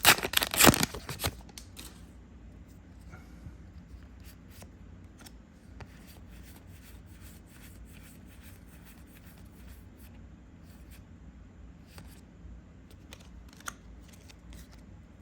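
A foil trading-card booster pack is torn open with a loud crinkling rip in the first second or so. Then come quiet handling sounds, faint scattered flicks and slides as the cards are thumbed through one by one.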